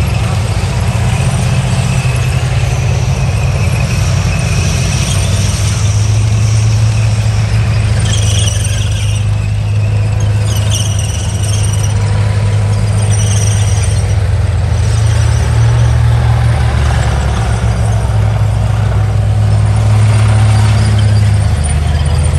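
Heavy tank engines rumbling as tracked armoured vehicles drive past, with the high squeal of their steel tracks coming and going over the rumble.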